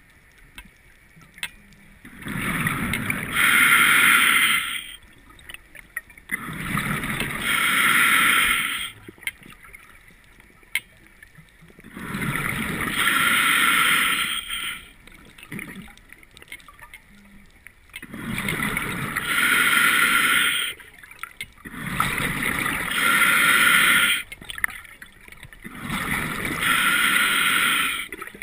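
Scuba diver breathing through a regulator underwater: six breaths with irregular gaps, each a low bubbling rumble followed by a louder hiss.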